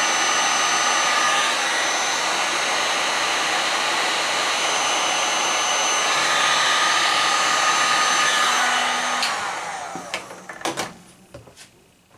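Heat gun blowing steadily with a faint whine, shrinking heat-shrink tubing over wire ends. About nine seconds in it is switched off and its sound fades away over a couple of seconds, with a few clicks of handling.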